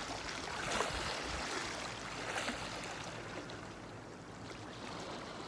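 Loch water lapping and sloshing against shoreline rocks, a steady watery wash with a few small splashes.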